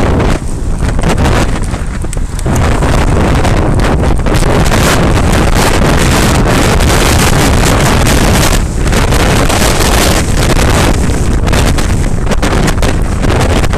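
Wind buffeting the microphone of a TomTom Bandit action camera carried on a moving bicycle: a loud, unbroken rush with brief dips, heavier from about two seconds in.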